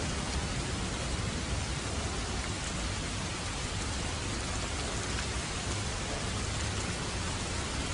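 Steady rain falling, an even hiss with no single drops or breaks standing out.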